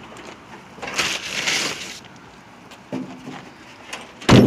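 A tarp rustling and crinkling as it is pushed back into a car's open trunk, then the trunk lid shut with a heavy thump near the end.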